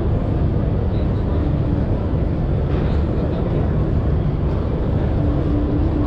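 Steady background din of a busy exhibition hall: a low rumble with faint indistinct voices, and a short steady hum near the end.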